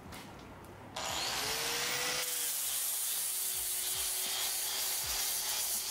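Angle grinder fitted with a zirconia flap disc switching on about a second in, its motor whine rising as it spins up. The whine dips a little, and a steady abrasive hiss follows as the disc grinds and cleans up the cast-iron anvil.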